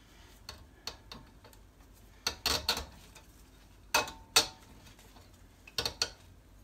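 Sharp metal clicks and clinks as the handbrake cable is worked free of a Peugeot 107's rear drum brake, coming in small clusters, with the loudest pair about four seconds in.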